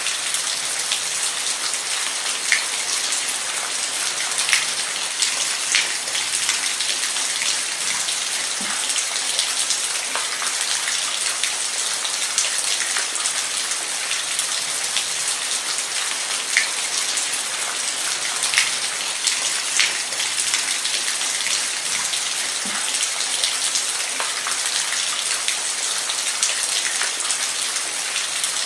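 Steady rainfall: an even hiss of rain with individual drops ticking sharply on a hard surface now and then.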